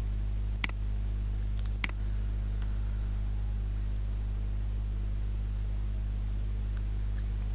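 Two sharp computer mouse clicks about a second apart, over a steady low electrical hum.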